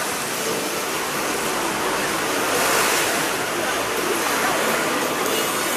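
Steady hiss of city street noise in wet snow: traffic on wet, slushy pavement. It swells a little about halfway through.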